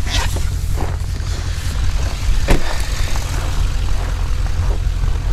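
Steady low rumble around a pickup truck as its door is opened and someone climbs out, with a few knocks and one sharp clunk about two and a half seconds in.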